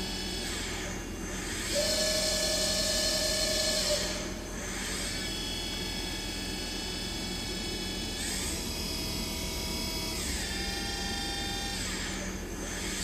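Deckel Maho DMU 50M milling machine's spindle running with a high whine that glides up and down several times, holding a steady pitch between each change of speed.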